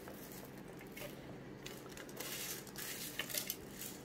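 Garlic cloves and whole spices being pushed by hand across a steel plate and tipped into a steel mixer-grinder jar: a scraping rustle, with a few sharp clicks about three seconds in as small pieces hit the metal.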